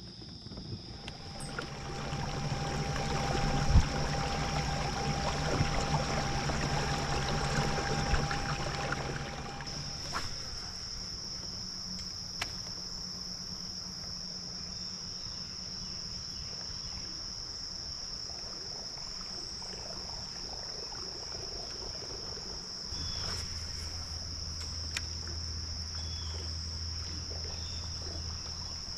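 Insects keep up a steady, high-pitched drone. For the first ten seconds a louder rushing noise with a low hum covers it, then cuts off suddenly.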